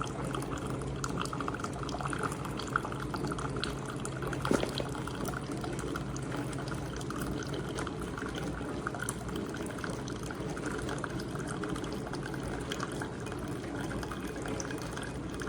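Hamilton Beach FlexBrew Trio coffee maker brewing: a steady stream of liquid runs into the cup, with a faint low hum under it.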